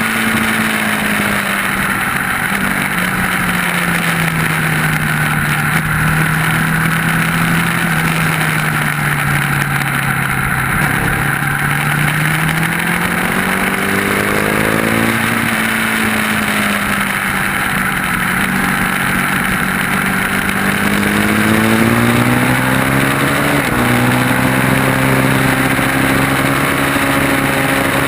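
Track-day motorcycle engine heard onboard at speed over steady wind noise. The engine note sinks slowly for about ten seconds, then climbs again in stages through the rest.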